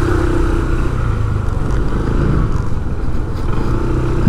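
A motorcycle engine running steadily over road noise. Its hum fades about a second in and comes back near the end.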